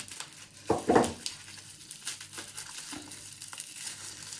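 Bubble wrap and packaging being handled and pulled off a padlock, crinkling and crackling in small irregular bursts, loudest about a second in.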